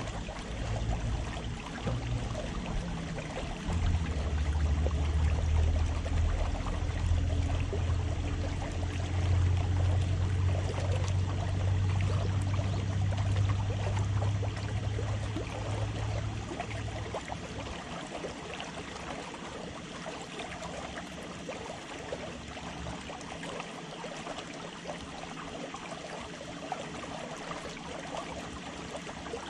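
Water lapping and splashing against a concrete bank, with a low rumble from about four seconds in that dies away around seventeen seconds.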